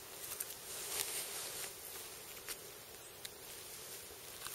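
Irregular rustling and scraping as gloved hands skin a deer, working the hide loose from the carcass, with a few soft clicks.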